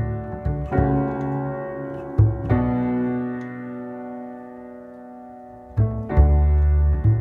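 Instrumental piano passage: slow chords struck and left to ring and fade, with deep low bass notes coming back in about six seconds in.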